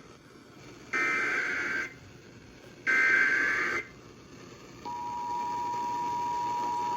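Emergency Alert System header for a flash flood warning: two buzzy data bursts of about a second each, the last of the three-burst header. About two seconds later the steady two-tone attention signal starts, warning that an alert message is about to be read.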